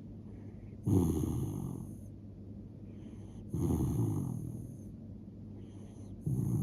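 Sleeping Shiba Inu snoring: three snores about two and a half seconds apart, each starting suddenly and fading away over about a second.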